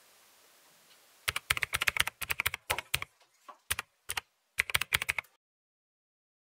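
Computer keyboard typing: a quick, irregular run of key clicks for about four seconds that cuts off suddenly.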